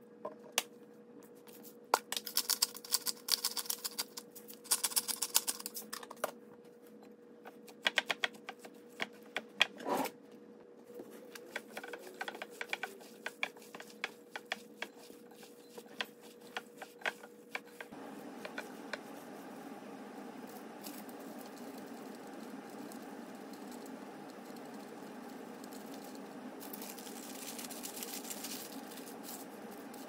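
Kitchen work sounds: quick runs of clicking and clattering from utensils and dishes. About halfway through, a steady background noise comes in and runs under a few last clicks.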